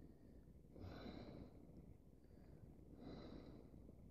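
Faint breathing: two slow nasal exhales close to the microphone, about a second in and again about three seconds in, over near silence.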